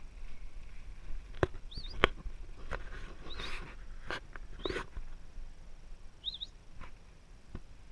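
A titi monkey giving short high squeaks, four in all, close to the microphone, mixed with sharp knocks and rustles of handling, the loudest knock about two seconds in.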